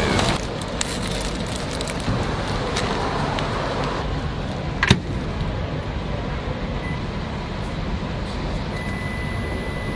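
Plastic and cardboard meal packaging rustling, then a microwave oven door shutting with one sharp click about five seconds in. A short electronic beep follows, then a longer beep of about a second near the end, over a steady hum of road traffic.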